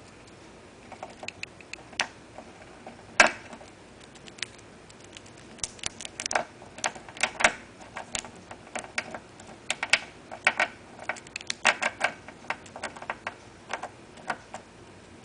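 Flying squirrel gnawing and crunching a nut held in its paws: irregular sharp clicks and cracks, sparse at first with one loud crack about three seconds in, then coming quickly and densely from about five seconds on.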